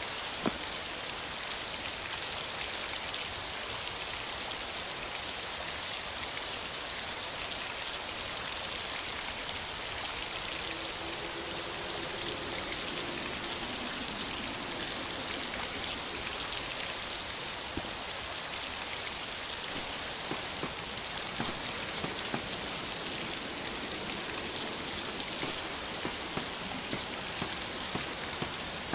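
Steady hiss of rain in a video game's ambient soundtrack, with a faint low hum for a few seconds in the middle.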